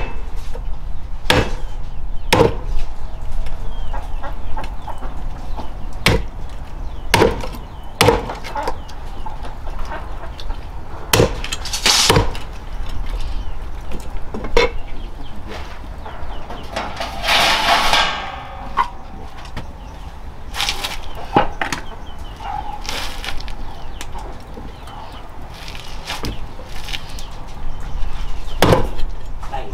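Irregular chopping blows on wood, coming one every second to few seconds, with chickens clucking and a rooster crowing once about halfway through.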